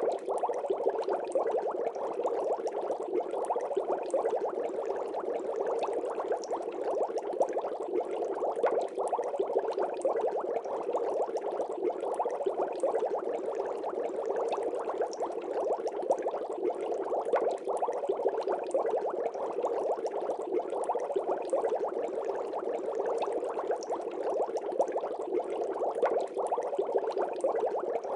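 Water bubbling steadily, a dense stream of small bubbles crackling without a break.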